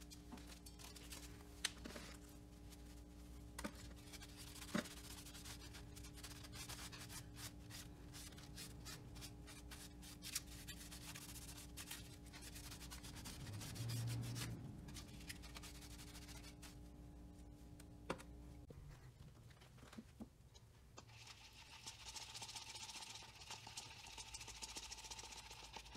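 Faint rubbing of a microfiber cloth wiped over a carbon-fiber part, with a few light clicks over a steady low hum; near the end this gives way to a quicker scratchy scraping as a stick stirs epoxy resin in a paper cup.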